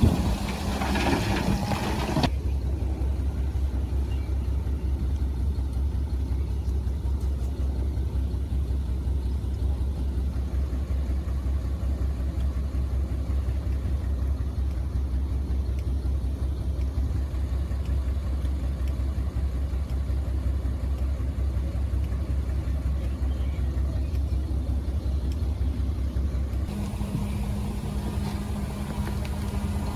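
Heavy construction machine's diesel engine running steadily as a low hum, after a louder, noisier opening couple of seconds; the engine sound changes abruptly near the end.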